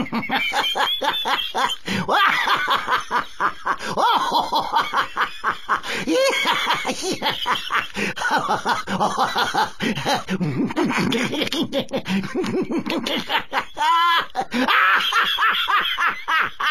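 Laughter, going on at length in quick repeated bursts with short breaks.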